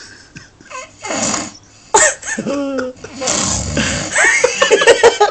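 A person snoring loudly: a rasping breath about a second in, then pitched snorts, and a long rough snore with rapid rattling catches in the last two seconds.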